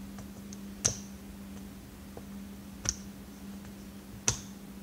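Three sharp metallic clicks, spread over a few seconds, from a hand tool working at a stuck part inside a vacuum motor during teardown, over a faint steady low hum.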